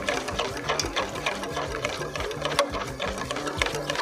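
Wire whisk beating a thick mayonnaise-and-cream dressing in a stainless steel bowl, the wires clicking and scraping against the metal in a quick, steady rhythm.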